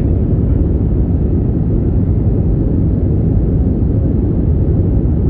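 Steady, low rumble of engine and airflow noise inside an airliner's cabin in flight.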